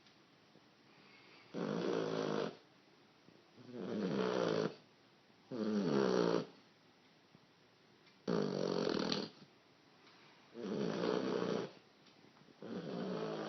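A sleeping dog snoring: six rasping snores, each about a second long, coming roughly every two seconds with one of its breaths.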